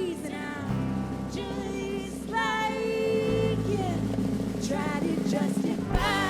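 Live band music heard from the audience: a woman's singing voice or lead melody line over held bass notes that change every few seconds, with drum hits coming in near the end.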